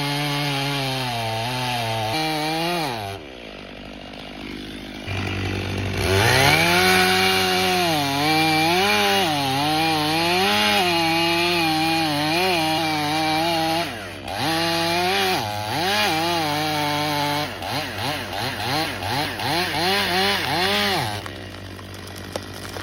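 Two-stroke chainsaw engine running. Its revs drop a few seconds in, then it is revved up again, its pitch rising and falling as it cuts. It gives a rapid series of throttle blips before dropping away near the end.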